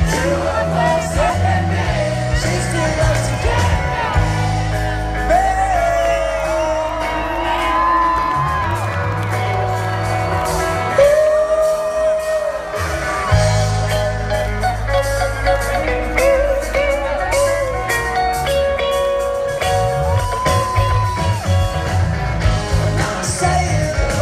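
Rock band playing live through a large outdoor PA: a singer over electric and acoustic guitars, bass and drums. About halfway, the bass and drums drop out for a couple of seconds under a held sung note, then the full band comes back in.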